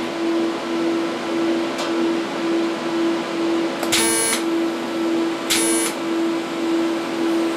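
TIG welding torch tacking stainless steel sheet: two short, buzzing arc strikes, each about half a second, about four seconds in and again a second and a half later, over a steady pulsing hum.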